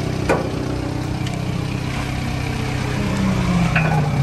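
Subaru Sambar kei truck's small engine running steadily at idle, with one sharp knock about a third of a second in. Near the end the engine note grows louder and its pitch sags a little.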